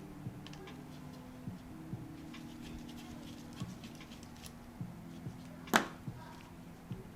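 Soft background music with sustained low notes, over small clicks and taps of lens parts being handled during disassembly. One sharp click comes near the end.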